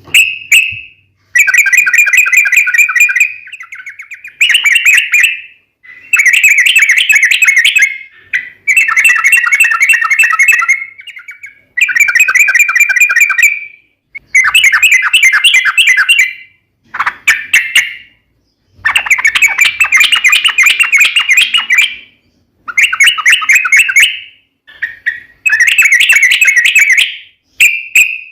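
Yellow-vented bulbul (trucukan) singing loud, fast, bubbling phrases, each about one to two seconds long, repeated over and over with short pauses between them.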